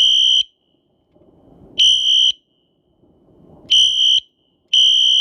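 Wheelock Exceeder fire alarm horn sounding in short, loud blasts of a high steady tone, about half a second each, keyed by hand as a code: one blast, a single blast about two seconds in, then two more close together near the end, part of a 2-1-2 pattern.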